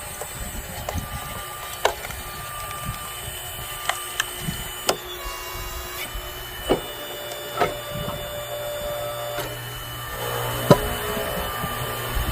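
8-ton hydraulic log splitter running with a steady hum while a log splits under the wedge, giving several sharp cracks and snaps of wood.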